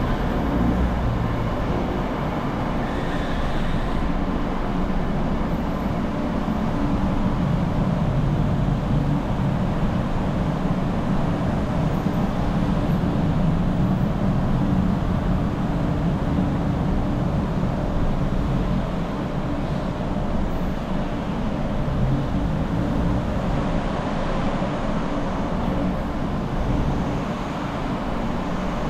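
Steady running noise of a car being driven, a low engine and tyre rumble that stays even throughout.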